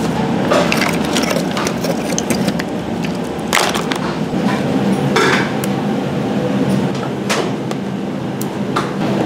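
Kitchen clatter: live abalone shells and utensils knocking and clinking against plastic tubs and containers, a few sharp knocks scattered through, over a steady kitchen hum.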